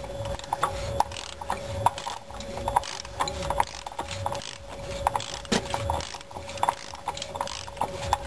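3/8-inch drive ratchet clicking in a series of short strokes as it turns an extension and cap wrench, tightening the canister oil filter housing on a Toyota Camry.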